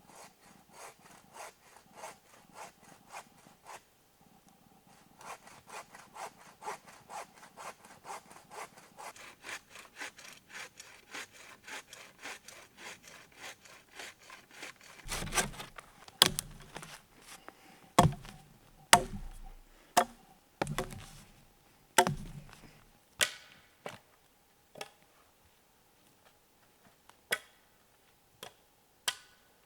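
Wood being sawn by hand in quick, even strokes, about two to three a second. About halfway through, a short run of louder, sharper knocks follows, then a few scattered clicks.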